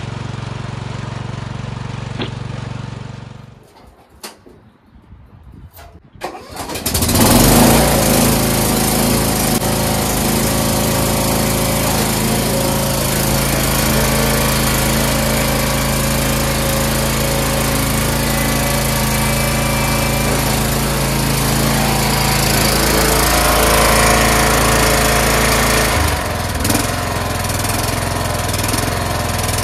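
Craftsman lawn tractor's small engine running steadily. It is loud throughout, apart from a quieter lull with a few clicks about four to six seconds in.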